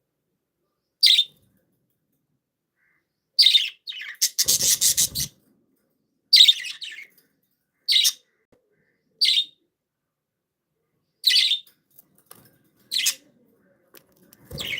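Budgerigars giving short, high chirps, about eight of them spaced a second or two apart. About four seconds in comes a rapid rattling burst lasting under a second.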